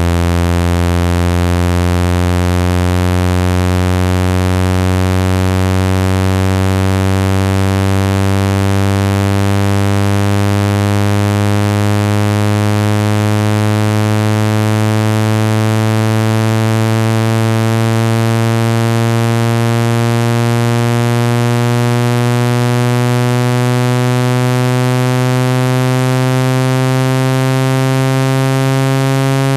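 Synthesized speaker-cleaning tone: a loud, buzzy low tone that rises slowly and steadily in pitch, played to shake sand and dust loose from a phone speaker.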